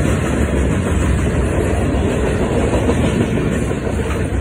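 Intermodal freight train of container flatcars rolling steadily past at a grade crossing: a continuous low rumble of steel wheels on the rails.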